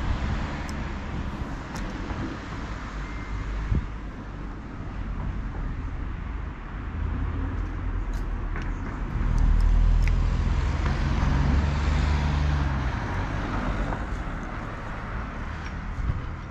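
Road traffic: a vehicle's low engine rumble swells about halfway through and fades again, over a steady rushing hiss.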